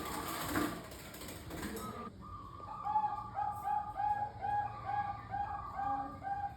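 Zebra doves (Bangkok-type perkutut) cooing: a rapid run of short, evenly spaced notes, about two to three a second, starting about two seconds in. A hissing rustle of noise fills the first two seconds.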